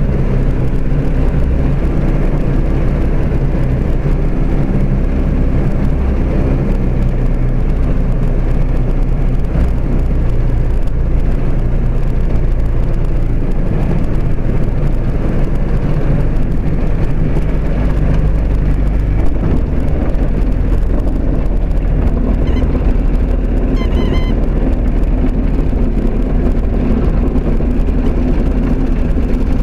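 Jabiru light aircraft's engine and propeller running steadily at reduced power, heard from inside the cockpit through the landing and rollout on the runway; the engine note shifts about two-thirds of the way through, and a few short high chirps sound briefly just after.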